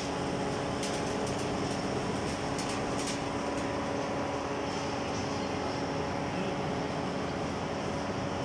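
Steady hum of industrial machinery running, with several constant tones in it and a few faint ticks.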